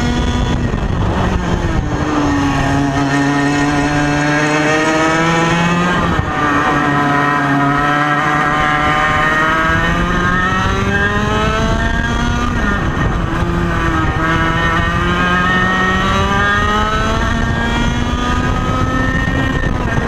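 1995 Ital Sistem SL21 100cc two-stroke kart engine at high revs on track, its pitch climbing steadily along the straights and dropping sharply off the throttle for corners about a second, six seconds and twelve and a half seconds in.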